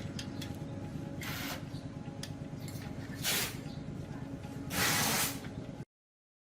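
Three short spraying hisses, the last one longest and loudest, over a steady low machine hum; all sound cuts off suddenly near the end.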